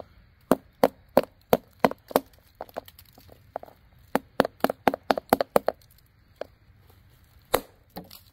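Survive Knives GSO 4.5 Bushcraft knife, a K890 steel Scandi, chopping into a wooden stick. Sharp wooden knocks come about three a second at first, then a quicker run of strikes around four to five seconds in, and one loud strike near the end.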